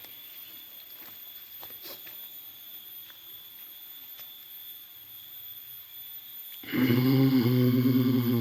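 A low, pitched call or drone of unknown source, about two seconds long, starting near the end and much louder than the steady high whine behind it.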